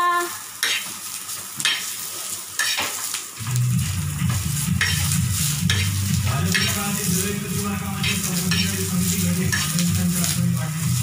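A chef's knife chopping and pushing onion pieces on a hot flat iron tawa as they dry-roast, the blade knocking on the metal about once a second. A low steady hum sets in about three seconds in.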